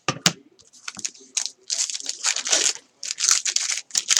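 Trading card pack wrapper being torn open and crinkled by hand, in several short rustling bursts, after two sharp clicks at the start.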